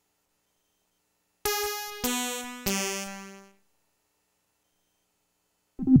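Waldorf Microwave wavetable synthesizer playing three bright notes in quick succession, each stepping lower in pitch, with a sharp attack and a fading tail. After a pause, another short, lower note starts near the end.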